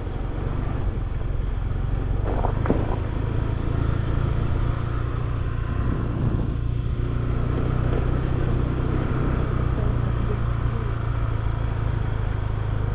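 Honda motorcycle engine running steadily at low speed, the bike ridden slowly over a broken road, with a couple of faint knocks about two and a half seconds in.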